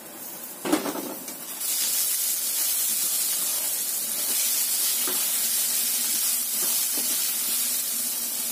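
Eggplant cubes frying in hot oil in a non-stick pan. A clunk about a second in as the glass lid comes off, then a loud steady sizzle while a spatula stirs the cubes, with a few light scrapes.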